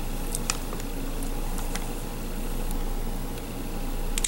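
Steady low hum and hiss of room noise, with a few faint clicks as a plastic face-turning octahedron puzzle is handled and turned over in the hands.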